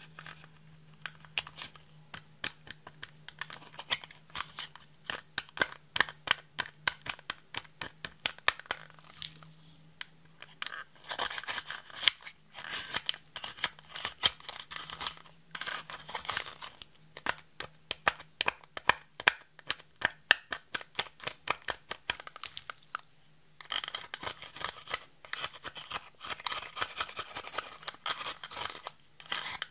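Plastic spatula scraping and chipping pressed highlighter powder out of its plastic compact pan: a fast run of short, sharp scratchy clicks, thickest in two long stretches in the second half.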